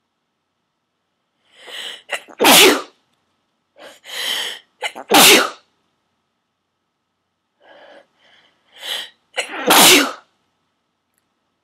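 One person sneezing forcefully three times, deliberately induced sneezes. Each sneeze comes after a few short, catching breaths in. The build-up before the third sneeze is the longest.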